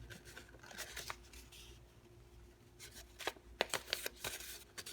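A sheet of paper folded and creased by hand: soft rustling, then a run of sharp crinkles and crackles in the second half.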